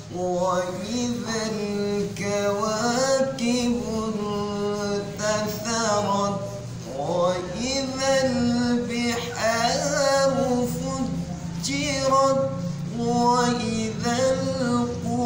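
A man reciting the Quran in Arabic, solo and unaccompanied, in melodic tajweed style: long held notes with ornamented rising and falling glides, and a brief breath pause about six and a half seconds in.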